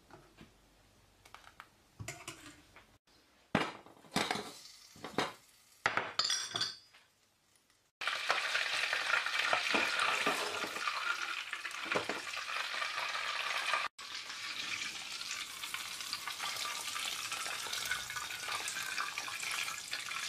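A few short knocks and scrapes, then melted butter sizzling steadily as it heats in a small copper pan, dropping a little in level about two-thirds of the way through.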